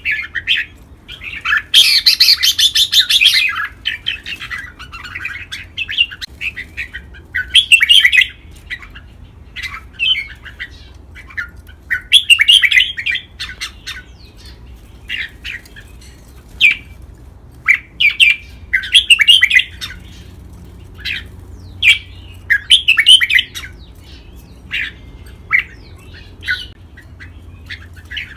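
Red-whiskered bulbul song: short, bright, warbled phrases repeated every second or two, with the longest and loudest burst about two seconds in.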